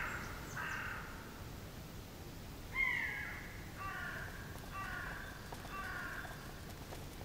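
Birds calling with separate, falling calls. The loudest comes about three seconds in, followed by three shorter calls about a second apart.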